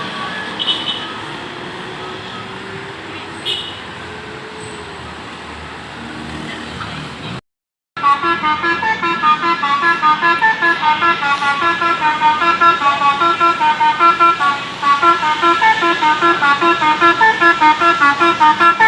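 Street traffic noise, then, after a moment's silence about seven seconds in, a tour bus's basuri musical horn (the multi-trumpet 'telolet' horn) plays a loud, fast run of notes, about two or three a second, repeating without a break.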